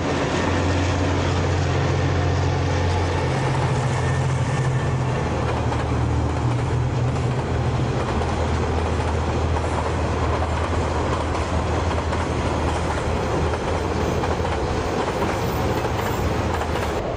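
Freight train of container wagons rolling steadily past on the rails, with its tail end passing near the end.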